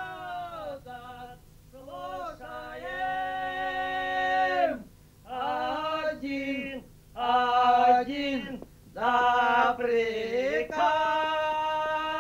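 A man singing a slow, drawn-out song in long held notes, phrase after phrase with short breaks between them.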